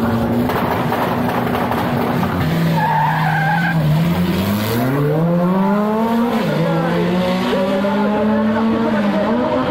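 Drag racing car's engine under hard acceleration: it holds a steady pitch, drops briefly about two seconds in, then rises steeply as the car pulls away, with dips in pitch like gear changes about six and nine seconds in.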